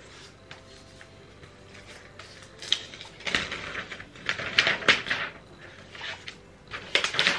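Protective wrap being peeled and pulled off a new iPad Air, rustling and crinkling in a few spells from about three seconds in, loudest near the end.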